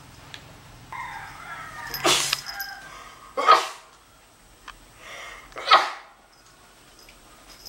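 Three short, loud bursts of breathy noise, a second or two apart, with faint pitched calls underneath early on.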